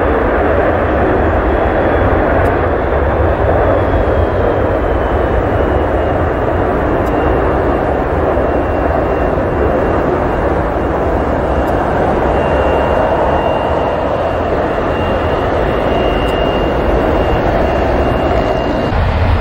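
Military fighter jets taking off: loud, steady jet engine noise with a deep rumble. A faint high whine drops slightly in pitch a few seconds in, then holds.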